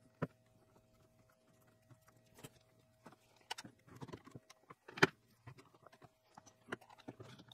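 One-handed bar clamps being set and squeezed onto a laminated chipboard sled, holding aluminium T-tracks down in epoxy: scattered clicks and knocks, the loudest about five seconds in.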